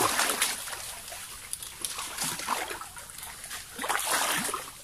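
Irregular splashing and sloshing of shallow muddy water, from people wading and digging by hand for mangrove clams in a swamp.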